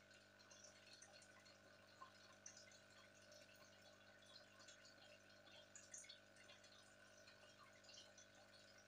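Faint bubbling and small drips of an aquarium air stone, scattered light pops over a steady low hum.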